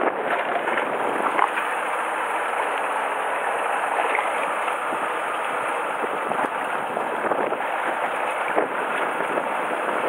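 Steady rushing noise of wind and sea water around a fishing boat at sea, with a few small clicks.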